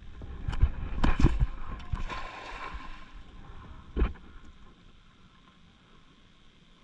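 Water splashing and sloshing with several knocks in the first few seconds, and a single thud about four seconds in before it goes quieter.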